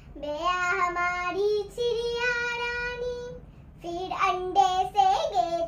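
A young girl singing a Hindi children's poem unaccompanied, holding one long note near the middle.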